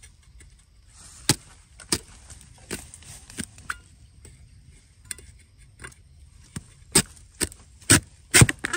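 Long-handled metal digging blade chopping into the soil at the base of a wild bamboo shoot: about a dozen sharp, irregularly spaced strikes, coming faster and hardest in the last two seconds.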